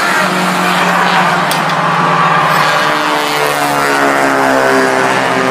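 Thunderstock stock-car engines running around the oval, a steady mix of engine tones shifting in pitch. One car passes close by near the end.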